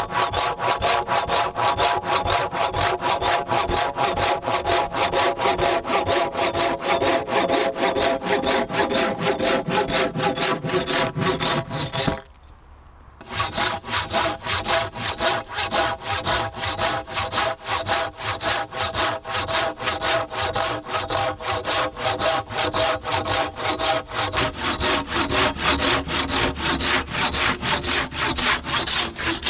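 Silky KatanaBoy Japanese pull-stroke folding saw cutting through a log, with fast, even back-and-forth strokes. There is a short break about twelve seconds in.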